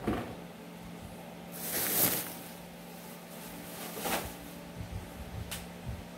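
Household handling noises: a knock at the start, a loud rustling swish about two seconds in, another swish about four seconds in and a short click, over a steady low hum.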